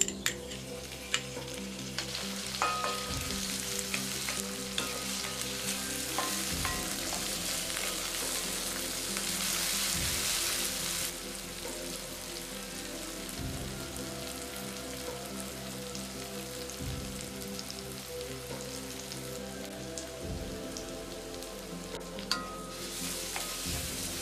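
Chopped vegetables sizzling in hot oil in a metal kadai, stirred with a wooden spatula that knocks against the pan now and then. The sizzle grows louder for a few seconds near the middle.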